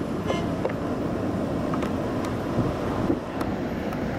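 Airliner jet engines running as the aircraft taxis through a turn, heard as a steady distant rumble.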